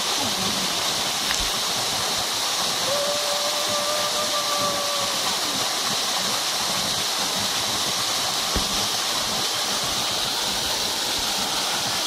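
Small waterfall splashing into a rock pool: a steady rushing hiss of falling water.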